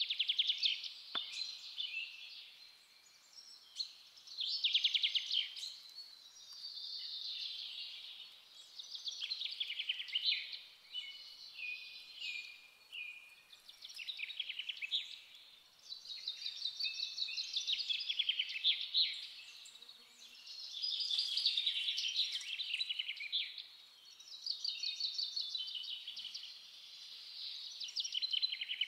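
European greenfinch singing: rapid twittering trills in phrases of a second or two, one after another with short pauses.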